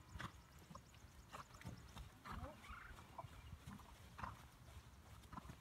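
Faint, irregular thuds of a horse's hooves on arena sand as it canters, with a few short high chirping sounds.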